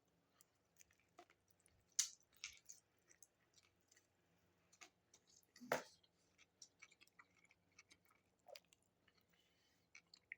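A person chewing a mouthful of sub sandwich: faint, scattered wet mouth clicks and smacks, the loudest about six seconds in.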